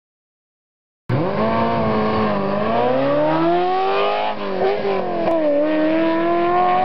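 Race car engine sound effect revving hard, starting suddenly about a second in. Its note climbs, drops sharply twice, and climbs again, like a car accelerating through the gears.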